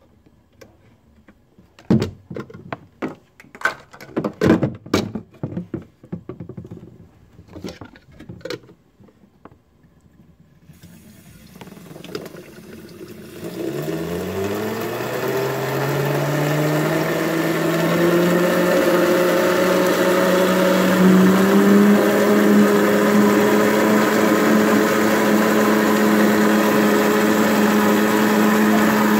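Clicks and knocks of plug connectors being pushed in and handled, then a high-pressure tap is opened and water rushes loudly through a small plastic-cased water turbine. The turbine spins up with a rising whine about a second after the water starts and settles into a steady hum over the water's hiss.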